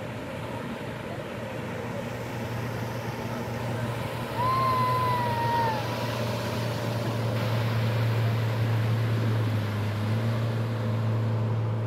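Outboard motor of a deck boat running at speed, a steady drone that grows louder as the boat passes close. About four and a half seconds in, a single high gliding cry rises and falls for about a second and a half.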